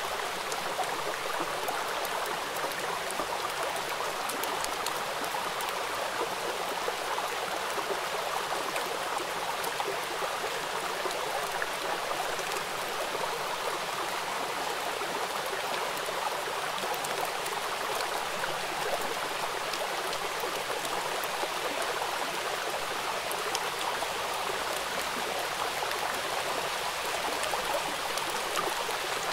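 Steady rain splashing on wet paving stones: an even hiss with fine drop ticks.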